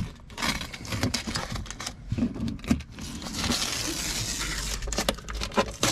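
Masking tape being peeled off plastic interior trim: a sustained papery rasp about three seconds in, among light handling clicks and taps on the trim.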